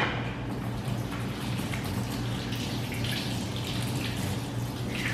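Kitchen sink tap running, hands being washed under it after handling raw meat. A brief knock at the very start.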